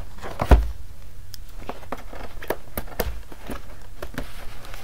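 Cardboard toy box handled on a tabletop: one thump about half a second in, a softer knock around three seconds, and light taps and rubbing of hands on the cardboard between them.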